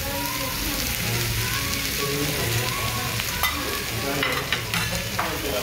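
Frozen pork belly, kimchi and mushrooms sizzling steadily on a foil-lined griddle pan. A few short clicks and rustles come in the second half.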